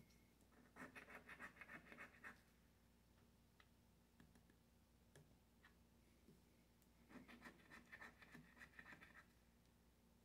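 Scratch-off lottery ticket being scratched: rapid back-and-forth strokes rubbing the latex coating off the play spots. The scratching comes in two bursts of about two seconds each, the first just after the start and the second about seven seconds in.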